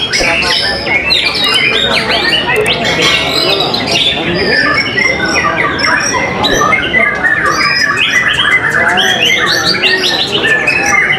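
White-rumped shama singing in a cage: fast, varied chirps, whistles and harsh notes, over a dense chorus of many other birds singing at once.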